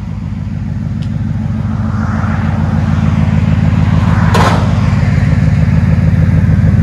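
Dodge Ram 1500's 4.7-litre V8 idling through a true dual exhaust with two Flowmaster Flow FX mufflers and 2¼-inch tailpipes: a steady low exhaust note that grows gradually louder as the microphone nears the tailpipes.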